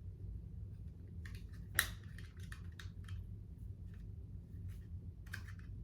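Small plastic clicks and snaps from a toy hair stamper being pressed and worked. The sharpest click comes a little under two seconds in, with lighter clicks around it and a couple more near the end.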